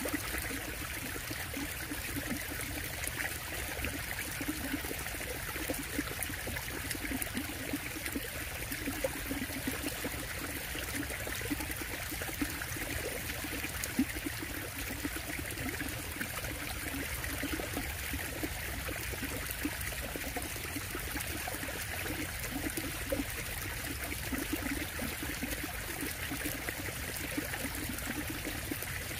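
Water running steadily in a man-made park stream, a continuous murmur that neither stops nor changes.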